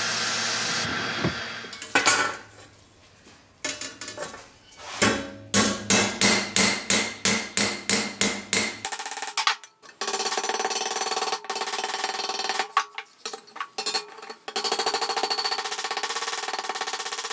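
Brief hiss of a sandblasting gun, then a ball-peen hammer striking pressed-steel toy body parts on a steel anvil. The strikes come about two a second in the middle, then turn into a denser run of quick taps.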